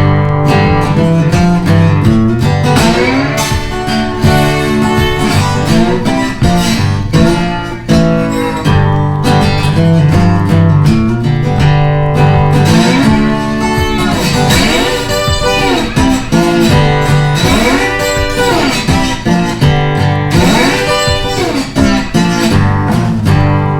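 Background music: a guitar-led track with strumming, bending lead notes and a steady bass line.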